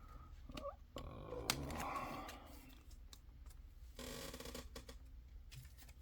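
Trading card being handled and slid into a plastic card sleeve: soft rustling and scraping with a couple of light clicks.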